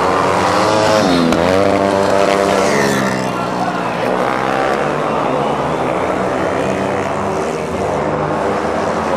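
Junior speedway motorcycle engines running hard in a race, with a high, continuous engine note. The pitch dips and climbs back up about a second in and again around three seconds, as the throttle is eased and reopened through the turn.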